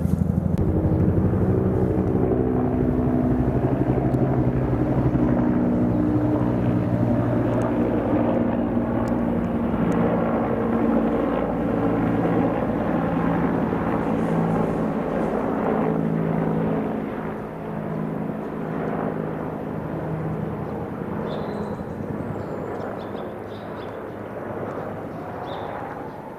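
Engine drone of an aircraft passing overhead: a steady low hum of several pitches that shift slowly, loud at first and fading away over the last ten seconds or so.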